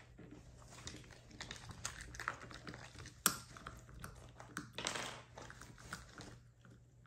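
Puppy gnawing on a hard chew: irregular small clicks and crunches of teeth on the chew, with one sharper click about three seconds in.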